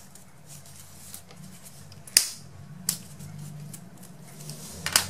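Disposable lighter being struck to seal the cut ends of grosgrain ribbon: a sharp click about two seconds in, a lighter one a moment later, and another near the end, over a faint steady low hum.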